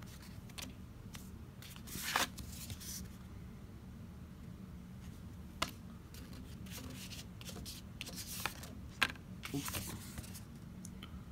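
Glossy reproduction lobby cards being handled by hand, sliding and tapping against each other and the paper packaging: scattered rustles and light card clicks, a rustle about two seconds in and sharper clicks around five and a half and nine seconds in, over a steady low hum.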